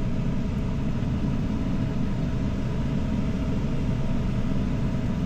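2014 Ram 1500 pickup engine running steadily, a low even rumble. The engine has a cylinder 3 misfire that the mechanic traces to a valve not opening, and he expects the truck to need a camshaft.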